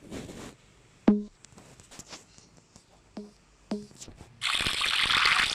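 Slime being squished, with a few sharp sticky pops, then a loud hiss lasting about a second near the end.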